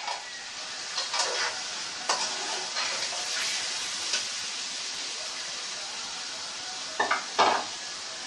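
Fried chicken pieces sizzling in oily masala in an aluminium kadai, with a steady hiss. A metal slotted spoon knocks and scrapes against the pan several times, twice loudest near the end.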